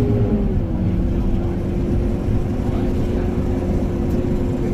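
Scania K230UB city bus's five-cylinder diesel and drivetrain running under way, heard from inside the cabin: a low rumble with a steady whine that dips slightly in pitch about half a second in, then holds.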